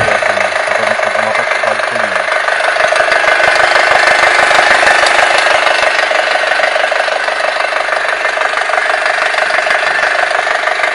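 Audi A4 B7's 2.0 TFSI turbocharged four-cylinder petrol engine running steadily, with a fast rattling or knocking noise that the owner calls a bad noise.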